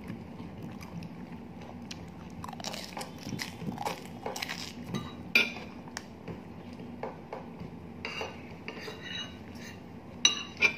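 Metal fork and spoon clinking and scraping against a plate while eating, with scattered light clinks, a sharp one about halfway through and two more near the end.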